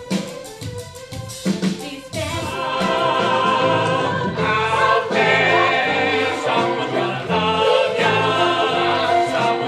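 A song with a group of voices singing over backing music. It is sparse and beat-led for about the first two seconds, then swells into a fuller, sustained ensemble sound.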